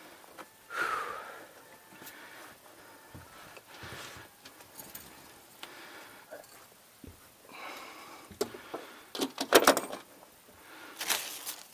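Fishing gear being handled in a small boat: scattered knocks, clinks and rattles, loudest in a quick cluster of clanks about nine to ten seconds in.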